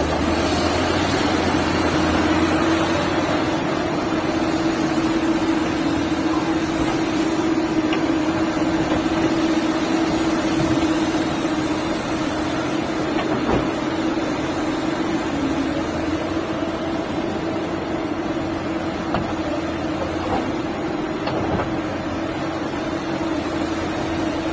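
Liebherr 954 hydraulic excavator's diesel engine running steadily, with a steady droning tone, easing off slightly about halfway through.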